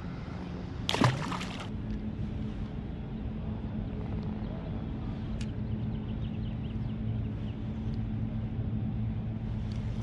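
Steady low drone of a boat engine running. A short, loud rush of noise comes about a second in.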